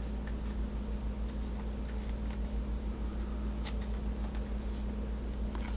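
Light, irregular clicks and taps of trading cards and plastic card sleeves or holders being handled, over a steady low hum.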